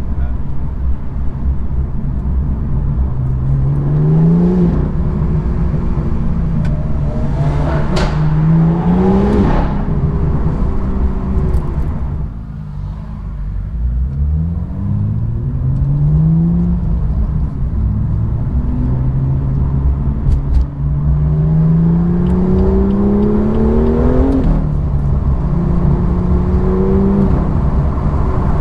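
BMW M2's N55 turbocharged straight-six through an M Performance exhaust, pulling hard through the gears: the engine note climbs repeatedly and drops back at each upshift. There are two sharp cracks about a third of the way in and a short easing off near the middle.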